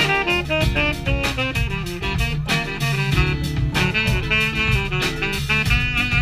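Live jazz-funk band playing: a saxophone carries the melody over electric guitar, double bass, electric keyboard and a steady drum-kit groove.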